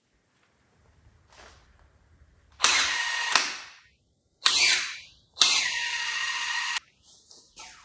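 Handheld power tool run in three short bursts on rusty chassis bolts, each starting suddenly and winding down as the trigger is let go. The longest burst is about a second and a half and runs at a steady pitch.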